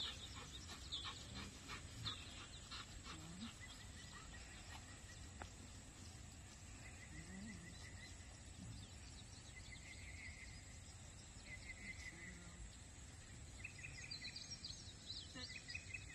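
Faint outdoor background: a low steady rumble with scattered short, faint chirps.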